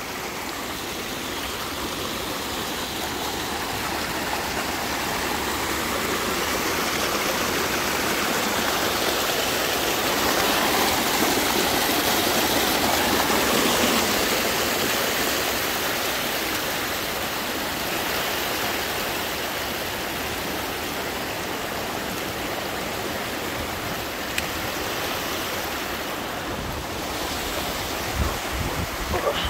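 Water of a shallow stream and small cascading waterfall rushing over rocks, a steady rushing that swells a little about midway.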